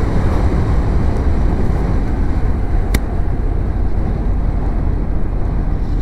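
Motorcycle cruising at about 70 km/h, with steady engine and road noise under heavy wind rush on a helmet-mounted microphone. A single sharp click comes about halfway through.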